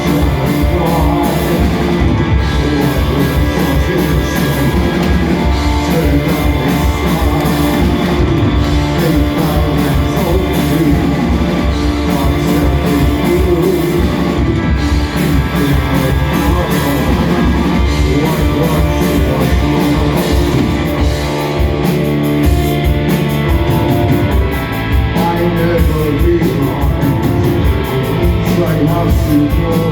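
A live post-punk rock band playing, with electric guitar, bass and drum kit driving a steady beat.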